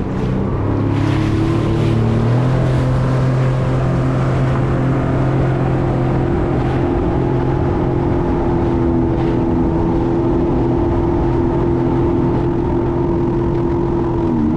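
2020 Sea-Doo FishPro jet ski's engine picking up speed over the first couple of seconds, then running steadily at cruising speed, with a brief dip in pitch near the end.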